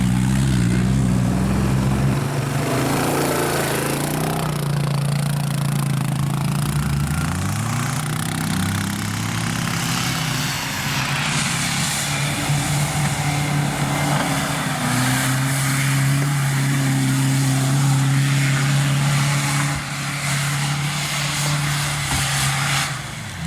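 4x4 off-road vehicle's engine running under load, its pitch rising and falling several times as the throttle is worked.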